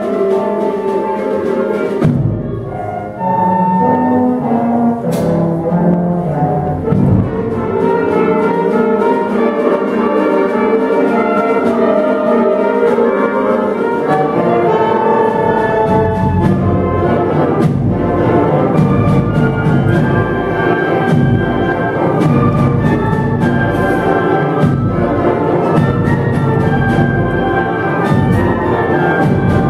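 A middle school concert band playing, with woodwinds, saxophones, brass and tubas. About two seconds in the music drops to a lighter texture, and about halfway through the low brass and a steady percussion beat come back in underneath.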